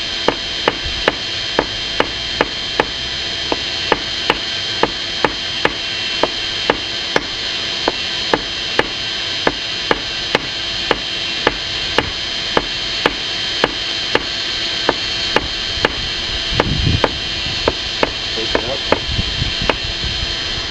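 Blacksmith's hammer striking a white-hot steel bar in steady blows, about two a second, forging it out. Under the blows runs the steady rush of the forge.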